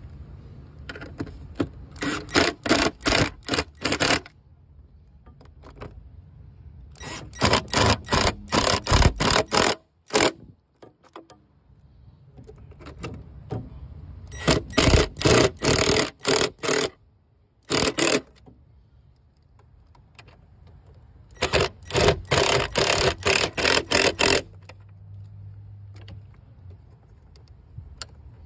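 Cordless Ridgid power wrench driving a 7 mm socket on an extension to run the air filter box screws back in. It goes in four bursts of rapid clicking, each a couple of seconds long, with one short extra blip.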